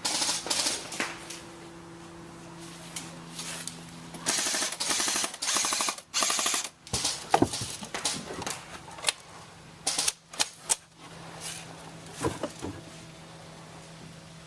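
Airsoft electric guns firing on full auto: a short rapid burst at the start and a longer burst of about two seconds around four seconds in, followed by scattered single shots.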